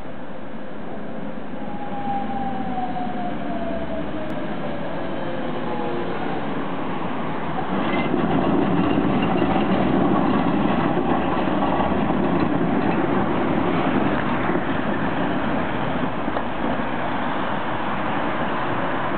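Pair of coupled Tatra T6A5 trams passing close by: a whine falls in pitch over a few seconds, then the wheels' rumble on the rails grows loudest about eight seconds in and eases as the trams pull away.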